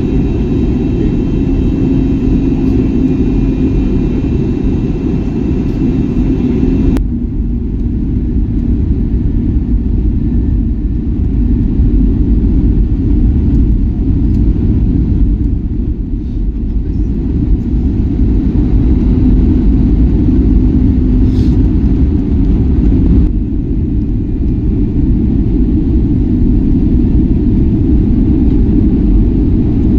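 Airbus A320neo cabin noise: a steady low rumble of the engines and airflow heard from inside the cabin. It changes abruptly about seven seconds in and again about twenty-three seconds in.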